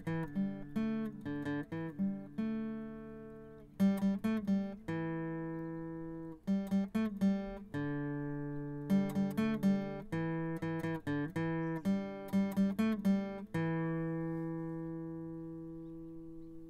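Acoustic guitar music: short runs of plucked notes alternate with notes left to ring and fade. The last note rings out slowly over the final few seconds.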